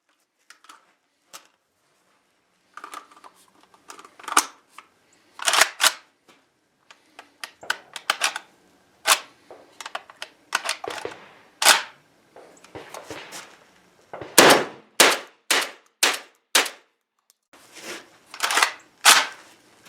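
JTS AK-style 12-gauge semi-automatic shotgun firing target loads: about a dozen shots at uneven spacing, coming faster in the last third, with smaller clicks before and between them.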